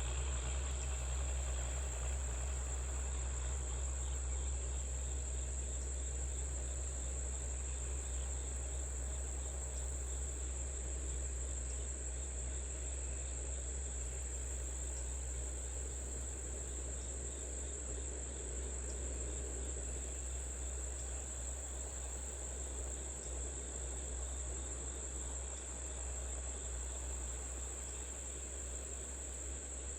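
Steady high-pitched insect chorus of field crickets over a low, steady engine drone that slowly fades.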